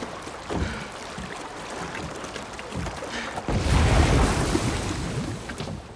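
Ocean waves and wind on a film soundtrack, with a louder rushing swell that comes in about three and a half seconds in and fades over the next two seconds.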